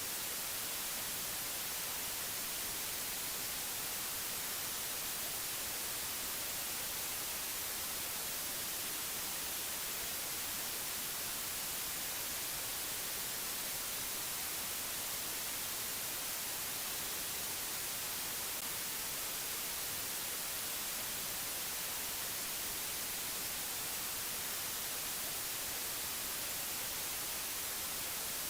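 Steady, unchanging white-noise hiss, brightest in the treble, with no tones or separate sounds in it.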